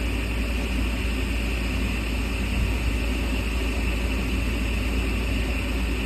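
Lennox gas furnace fan running steadily through its start-up sequence, a constant low hum and airy rush, with the burners not yet lit.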